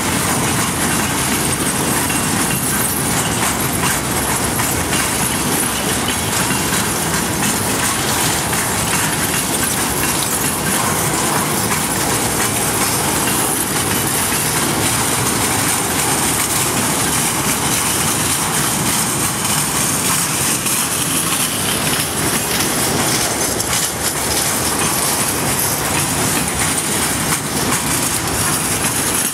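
Freight train cars, boxcars and then tank cars, rolling past: a steady, unbroken noise of steel wheels running on the rails.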